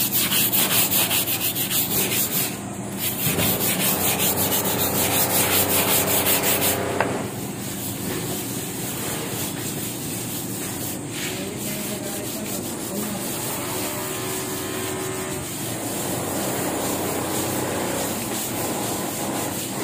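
A brush scrubbing wet outdoor tiles to lift soaked paint drips. The scrubbing comes as quick, regular back-and-forth strokes at first, then turns steadier and a little quieter about seven seconds in.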